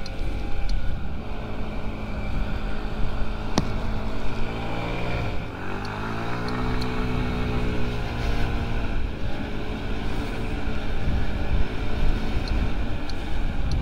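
Honda Ruckus scooter's 49cc four-stroke single-cylinder engine running steadily, then revving up and easing back about six seconds in as it pulls away, before settling into a steady run. A single sharp click comes a few seconds in.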